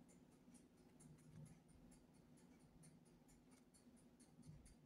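Near silence, with faint irregular crinkling and ticking of a pleated paper cupcake liner as fingers squeeze a soft chiffon cupcake, over a low steady hum.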